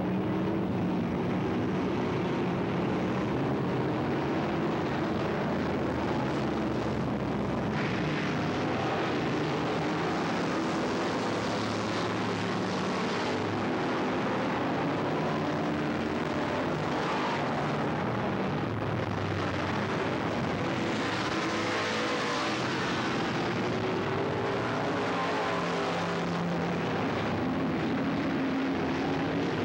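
Several dirt-track stock car engines running hard around the oval: a continuous drone, with engine notes rising and falling as the cars pass.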